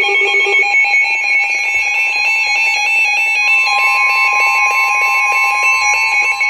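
NOAA Weather Radio alert tones announcing a new warning: a loud electronic alarm that switches rapidly in pitch, joined about halfway through by a steady lower tone, the 1050 Hz warning alarm tone.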